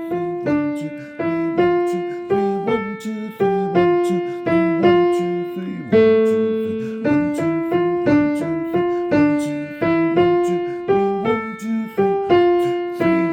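Piano playing a simple melody with accompaniment, single notes and small chords struck at an even pace, one note held longer about six seconds in.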